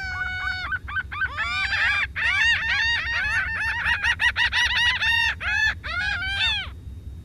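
Laughing gull calling: a few longer drawn-out calls, then a fast run of short, arched nasal notes, the laughing series the species is named for. The calling stops shortly before the end.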